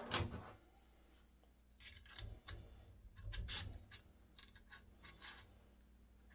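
Clicks and light knocks of camera gear being handled: a small tool set down on the tabletop, then a follow-focus bracket and rod clamp being fitted on a gimbal arm, with the loudest knocks about two and three and a half seconds in.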